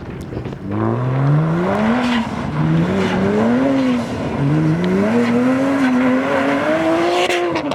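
Car engine accelerating hard through the gears: its pitch climbs and drops back at three gear changes, then holds high and falls away near the end.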